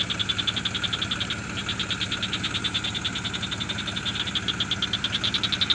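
Frogs calling continuously in rapid, even high-pitched pulses, about ten a second, over a low steady hum.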